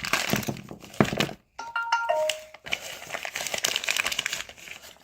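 Plastic packaging crinkling and crackling as it is handled and opened. About a second and a half in, a short electronic chime of a few notes stepping down in pitch, like a doorbell, sounds over it.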